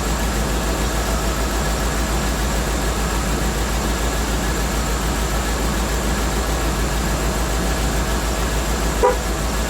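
Land Rover Discovery II's 4.0 V8 engine idling steadily, with its newly replaced power steering pump running quietly and no whine.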